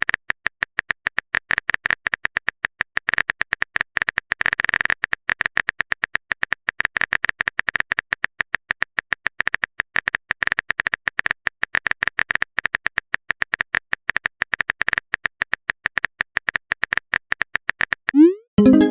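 Rapid, irregular phone-keyboard typing clicks, a sound effect for a text message being typed out. Near the end comes a short pitched chime with a rising start, like a message-sent or received alert.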